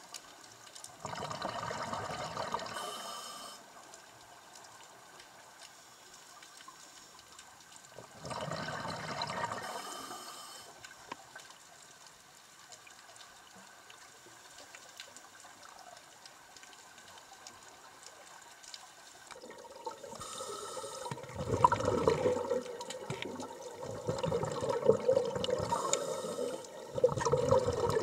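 Scuba regulator exhalations heard underwater: bubbling, rushing bursts of exhaled air, two single breaths about seven seconds apart, then from about two-thirds of the way in a busier stretch of heavier bubbling with three louder bursts.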